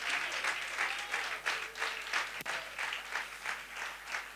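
Congregation applauding, many hands clapping at once.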